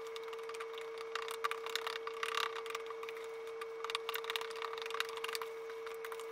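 A metal utensil stirring and pressing a thin mung bean flour batter in a plastic bowl: quick clicks and scrapes against the bowl in irregular flurries as lumps of flour are worked out, over a steady faint hum.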